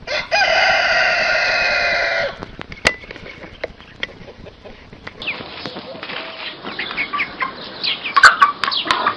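A rooster crowing once, a loud call of about two seconds that falls slightly in pitch at the end. From about five seconds in it is followed by a busy run of short chicken clucks and chirps.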